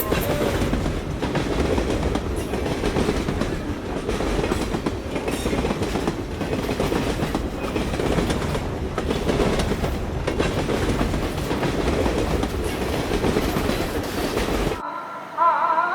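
Passenger train running along the track, a steady rattling noise with irregular clicks from the wheels and carriages. It cuts off suddenly near the end.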